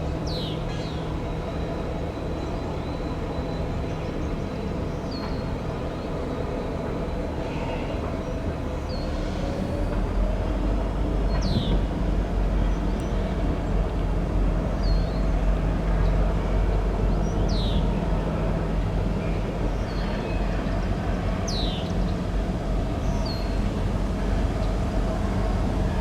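Diesel freight locomotive engine running steadily, its low rumble growing louder about ten seconds in. A bird chirps repeatedly over it.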